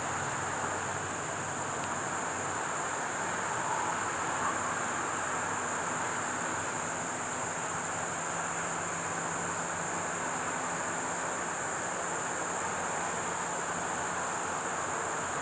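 Steady chorus of insects, a high, even drone that doesn't let up, over a constant broad rushing hiss.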